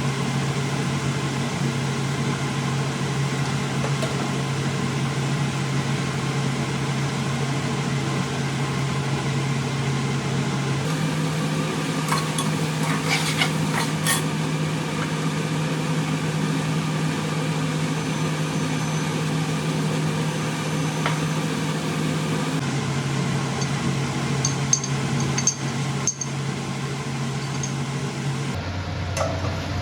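A steady mechanical hum in a kitchen while curry cooks, with faint sizzling and a few light clinks of utensils. The hum changes pitch abruptly a few times.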